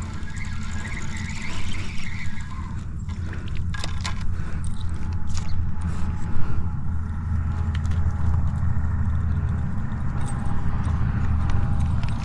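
Wind buffeting the microphone as a steady low rumble, with a few sharp clicks from handling the fishing rod and spinning reel scattered through the middle.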